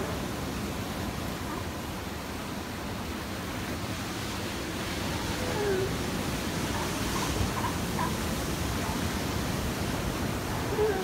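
Steady wash of surf breaking on a rocky shore, with a few brief faint calls or voices about halfway through and near the end.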